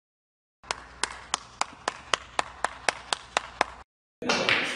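Slow, evenly spaced clapping: about a dozen sharp claps, roughly four a second, that stop abruptly, followed near the end by about a second of dense noise.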